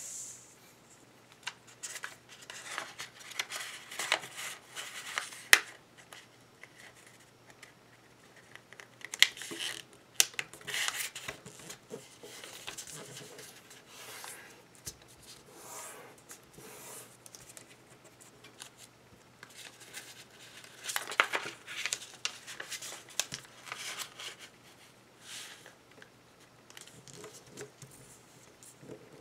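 Sheet of origami paper being handled and folded: crisp rustling and crinkling in irregular bursts, with short sharp snaps as creases are pressed and the paper slides over the table.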